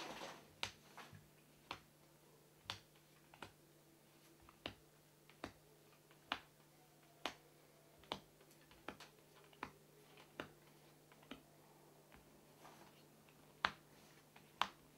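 Magic: The Gathering cards being laid down one at a time onto a table while sorting a deck: short sharp snaps about once a second. A faint steady hum runs underneath.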